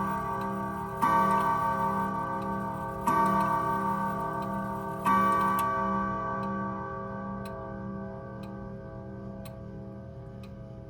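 Pearl grandfather clock with a Hermle movement striking the hour on its chime rods: three strikes about two seconds apart, the last of the twelve for 12 o'clock. The ringing then fades while the pendulum ticks about once a second.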